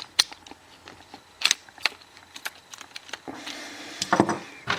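Sharp plastic-and-metal clicks of a disc detainer pick tool working the discs of a clear acrylic training lock to turn it back to locked, with a brief rattle a little past halfway.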